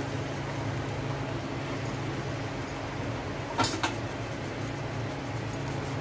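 A steady low hum with an even hiss over it, and two light metallic clinks close together about three and a half seconds in as the steel plate is handled.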